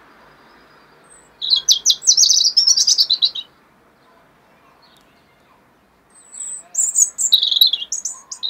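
European robin singing two phrases of rapid, high notes, one about a second and a half in and another near the end.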